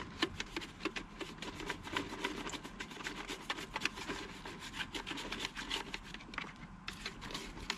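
Quick, irregular scrubbing strokes of a toothbrush on the plastic gate (flapper) valve of a Thetford RV toilet, scouring off mineral deposits.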